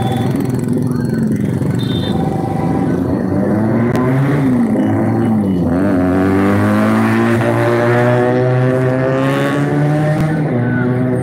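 Motor vehicle engine running loud and revving. Its pitch dips twice about halfway through, then climbs steadily for several seconds and eases off near the end.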